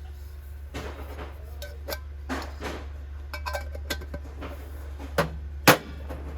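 Brass vessels and utensils being handled, knocking and clinking against one another and against a hard surface, some strikes ringing briefly. The two loudest knocks come near the end, over a steady low hum.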